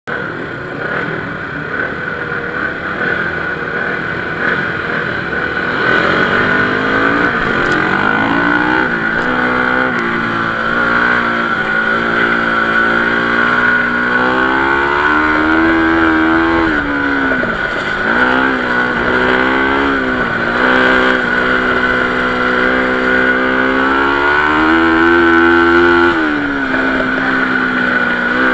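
Dirt bike engine at racing speed on a flat-track oval, its revs climbing along the straights and dropping sharply several times as the throttle is rolled off for the turns. A steady high-pitched whine runs underneath.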